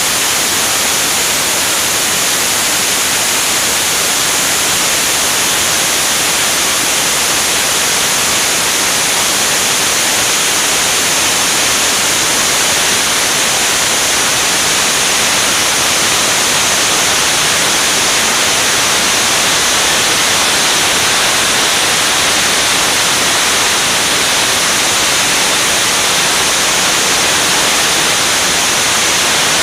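Steady, loud rushing hiss of air streaming past a camera mounted on the wing of an L-39 Albatros jet in flight. It runs flat and unbroken, with no engine tone standing out.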